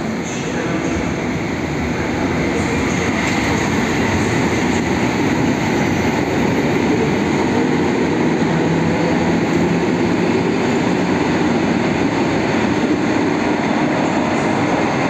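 EN57 electric multiple unit pulling out and passing close by, its wheels and motors running steadily. It grows louder over the first two seconds, and a low hum sounds for a few seconds in the middle.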